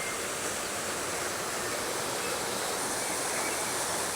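Steady rush of running water from garden fountains and cascades.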